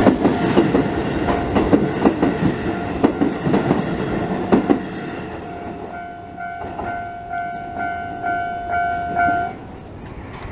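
Keisei Kanamachi Line train passing over a level crossing, its wheels clacking over the rail joints for about five seconds and then fading. Under it the crossing's warning bell rings at about two strikes a second and stops near the end.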